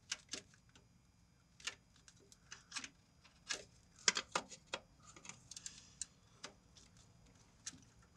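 Irregular sharp metal clicks of a hand tool working the nut on the intake pipe clamp, some in small clusters.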